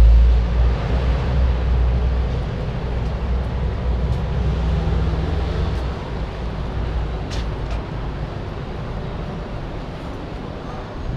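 Street traffic: a heavy vehicle's engine rumble that is loud at first and fades away over several seconds. Two short clicks come about seven and a half seconds in.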